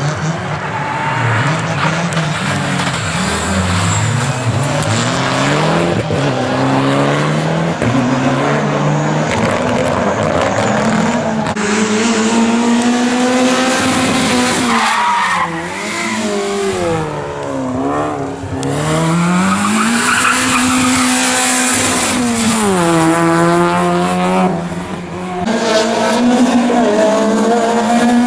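Rally cars running hard on tarmac, one after another. Their engine notes repeatedly climb under acceleration and drop at each gear change and braking point, with tyres squealing.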